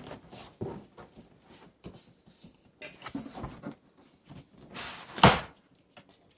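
Cardboard box and packing being handled while a computer case is pulled out: scattered rustles and light knocks, with one loud thump about five seconds in.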